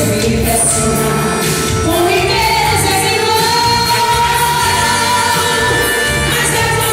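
Women singing a Portuguese gospel worship song with instrumental accompaniment, holding a long note from about two seconds in.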